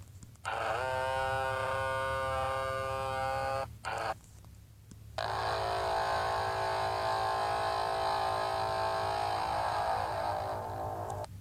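Air horn sound effects played from a smartphone app. The first horn blast runs about three seconds with a slight rise in pitch at its onset. After a short break a second, different horn blast holds for about five and a half seconds.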